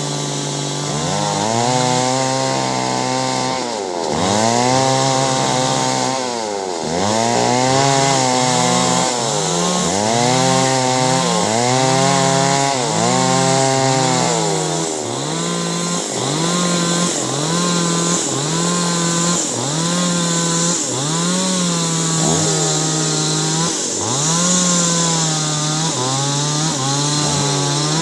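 Chainsaw cutting clove-tree wood, the engine's pitch repeatedly dropping as the chain bites and picking back up, about once every second or so.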